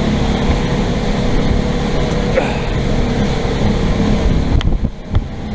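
Motorboat engine running steadily while the boat is under way through rough water, with wind rushing over the microphone; the level dips briefly near the end.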